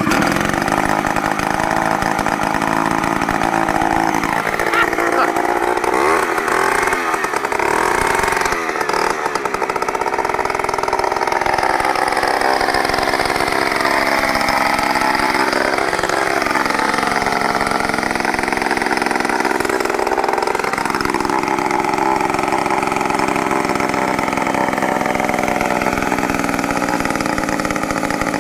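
A 100cc two-stroke chainsaw engine running loud at high revs, its pitch dipping and climbing back several times between about 5 and 21 seconds in.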